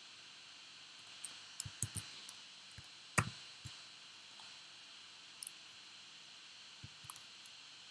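Scattered clicks of a computer keyboard and mouse, bunched in the first half with a few more near the end, the loudest a little after three seconds in, over a faint steady hiss.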